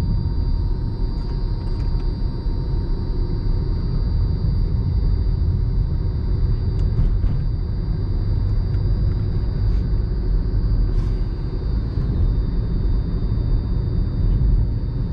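Car cabin noise while driving in third gear: a steady low rumble of engine and tyres on the road, heard from inside the car.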